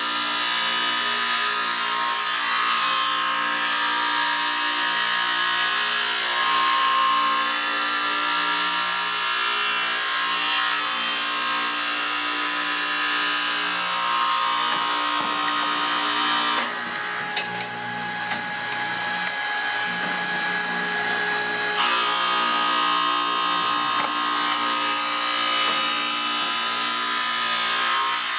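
Two electric grinding discs grinding the wings of a hammer union nut square as the nut is turned: a steady high whine with grinding. For about five seconds past the middle the highest part of the sound drops away and it goes a little quieter, then comes back.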